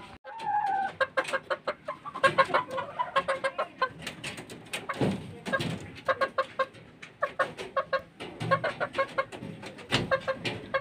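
Chicken clucking: a long run of short, quick clucks with a brief drawn-out note near the start.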